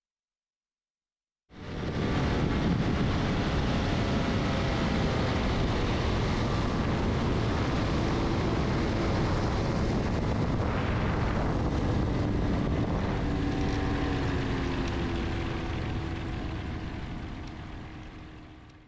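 Ultralight aircraft's rebuilt Rotax engine and propeller running steadily, coming in suddenly about a second and a half in and fading out near the end.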